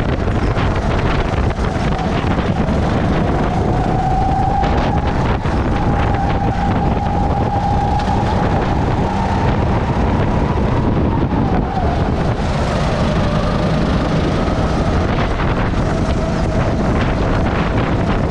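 Racing kart engine running at speed, heard onboard under heavy wind noise on the microphone. Its note rises and holds along the straight, then drops about two-thirds of the way through as the kart slows for a corner.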